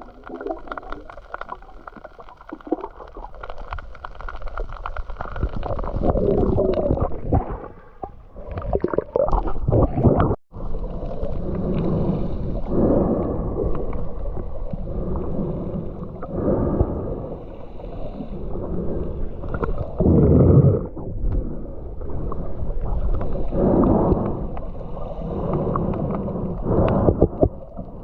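Muffled sloshing and gurgling of sea water, swelling every few seconds, with a brief dropout about ten seconds in.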